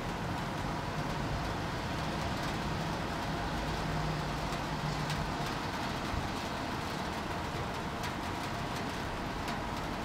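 Steady city ambience: a low rumble of distant traffic under light rain, with a few scattered drop ticks.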